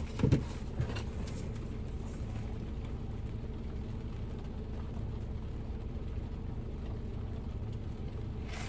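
Steady low hum inside a parked car's cabin, with a few light knocks in the first second or so.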